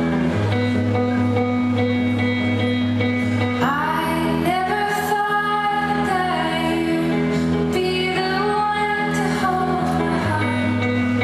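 Live band playing a slow pop ballad, holding steady sustained chords, with a female lead vocal coming in about four seconds in.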